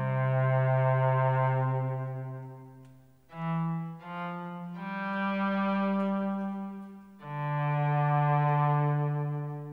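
Slow instrumental background music: long held chords that swell and then fade away, changing about three times.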